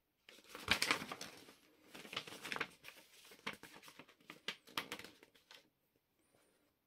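Paper rustling and crinkling as the pages of a large paper instruction booklet are turned and handled, loudest about a second in, again around two seconds and near five seconds.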